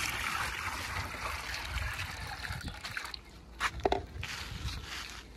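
Water trickling and sloshing, fading after about three seconds, with a couple of short knocks a little later.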